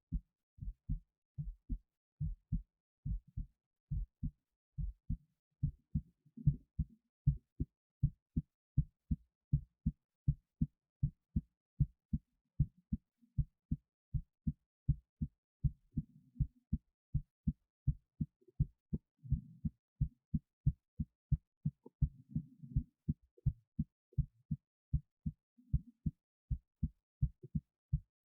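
A human heartbeat recorded close up at the chest: a steady run of low lub-dub thuds, with a few faint low rustles between beats in the second half.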